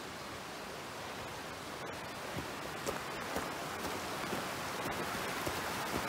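Steady rush of a mountain stream under a wooden footbridge, growing louder about two seconds in, with footsteps on the wooden planks.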